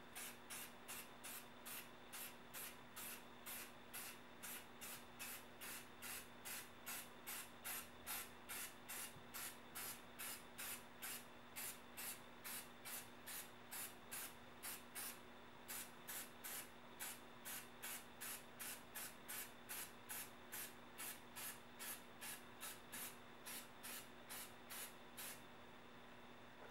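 Aerosol spray paint can sprayed in short, quick bursts, about two a second, with a brief pause about halfway.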